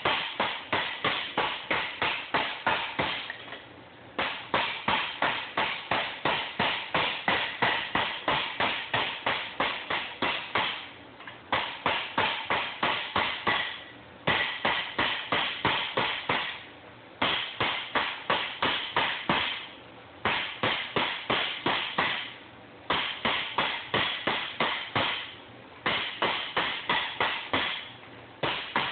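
Body hammer tapping over a metal header-tube transition, about four ringing blows a second in runs of a few seconds with short pauses between: smoothing out waves and ripples in the tube.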